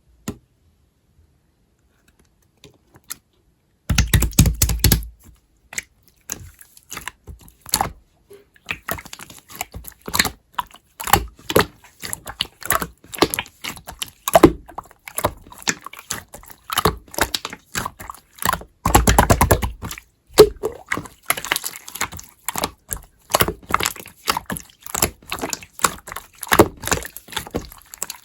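Slime being mixed and squished by hand: quick wet clicks and pops, starting about four seconds in, with two louder stretches of dense crackling.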